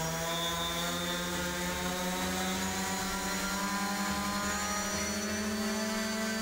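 Quadcopter's electric motors and propellers spinning hard on a test bench: a steady whine that creeps slowly up in pitch as the throttle is pushed higher. The motors are drawing more current than the ammeter can measure.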